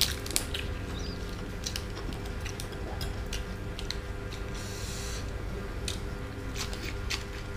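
Fresh lettuce leaves being torn and handled, making scattered small crisp crackles, with a short crinkling rustle about five seconds in.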